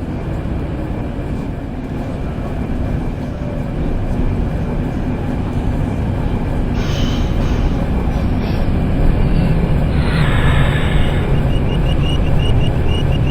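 MTR Kwun Tong Line C-train running on the line, a steady low rumble of wheels on rail that slowly grows louder. Brief hissing bursts come about seven and ten seconds in, and a fast high ticking starts near the end.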